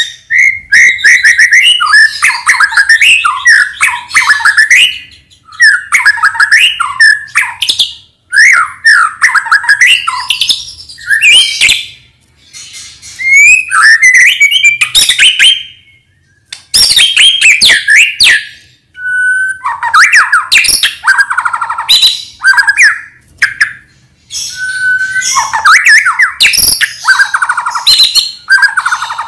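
White-rumped shama (murai batu) singing loud, fast, varied song: rapid whistles and trills mixed with harsh chattering notes, in bursts of a few seconds with short pauses between. This is full, vigorous (gacor) song of the kind played as a lure to set other shamas singing.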